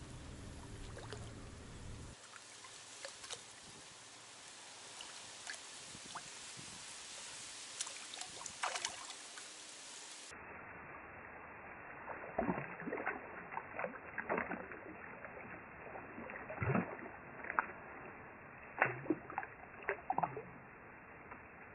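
Faint hiss with scattered ticks, then from about ten seconds in water splashing and sloshing in short, irregular bursts as a hooked fish thrashes at the surface close to the bank.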